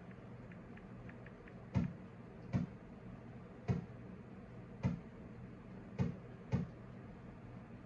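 Six sharp taps, a second or so apart, from a fingertip tapping a phone's touchscreen, typing in a six-digit verification code.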